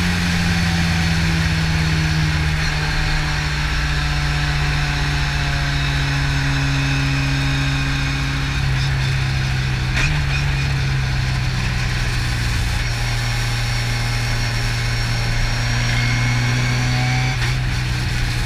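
Race car engine heard from inside the cockpit, pulling steadily in fourth gear with its pitch slowly falling. About ten seconds in, a downshift to third lifts the note, which then sinks gradually again.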